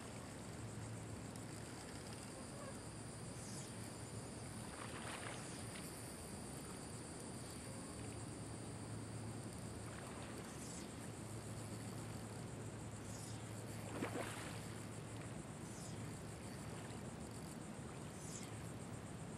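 Steady high-pitched buzzing of insects in a salt marsh, with a faint low hum that comes and goes. A couple of brief swishes sound, the louder about fourteen seconds in.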